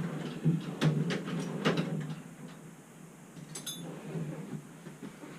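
Metal hand tools clinking: several sharp clicks in the first two seconds, then a short, high metallic ring about three and a half seconds in, as a 10 mm tool is picked out and tried on a nut.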